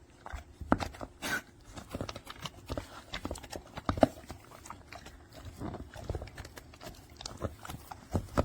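A dog eating from a slow-feeder anti-gulp bowl: an irregular patter of clicks and knocks as food and bowl rattle under its nose and tongue, with some chewing.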